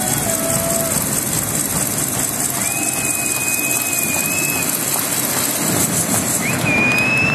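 Ice hockey arena crowd cheering, a steady dense roar of fans celebrating a win. A long high tone cuts through it twice, the second rising in pitch near the end.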